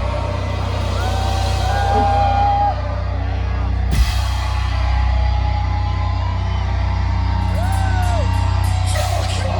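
A metalcore band playing live heavy music: a loud sustained low rumble with short sliding higher notes over it, and one sharp hit about four seconds in.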